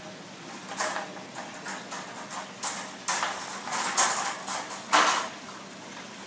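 Wire panels of a Carlson metal dog crate clanking and rattling against each other as the crate is folded flat. A series of sharp metallic clanks, the loudest about four and five seconds in.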